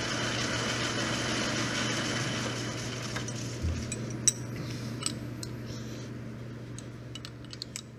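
Metal lathe running with a half-inch ball end mill cutting a cup into a brass part, then winding down: its steady hum fades gradually as the chuck comes to rest. A few light clicks and ticks come in the second half.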